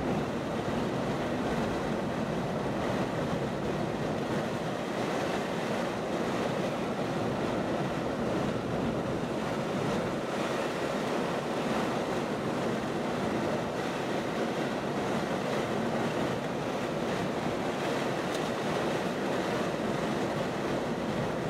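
Wind blowing over the microphone outdoors, a steady rushing noise with no let-up.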